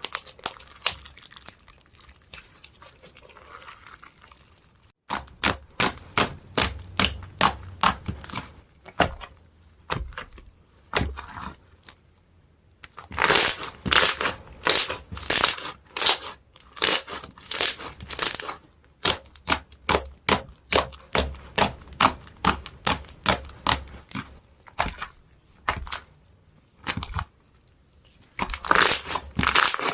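Slime being squeezed and pressed by hand, making a run of short sticky clicks and crackles, about two a second. The clicks start about five seconds in after a quieter crackling stretch.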